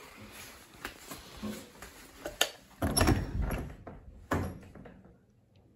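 Footsteps and handling noise as the camera is carried, then a door being opened: a sharp knock about two and a half seconds in, a heavier sound around three seconds, and another thud just past four seconds, after which it goes quiet.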